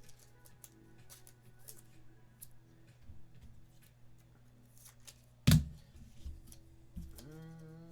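Trading cards being handled: short clicks, flicks and rustles as cards are sorted by hand, with one sharp knock about five and a half seconds in.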